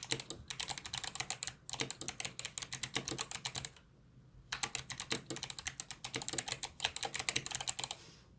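Fast typing on a mechanical keyboard fitted with Kailh Box Jade clicky switches: a dense run of sharp clicks. The clicks stop briefly about four seconds in, then carry on and slow near the end.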